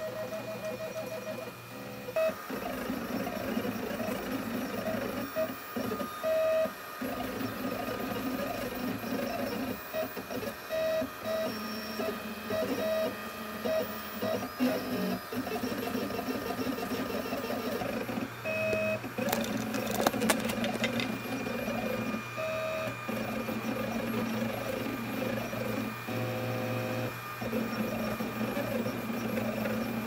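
Stepper motors of a home-built Mendel RepRap 3D printer whining and buzzing as the extruder head moves about printing a plastic part. The tones keep changing pitch and stopping and starting with each move. There are a few sharp clicks about two-thirds of the way through.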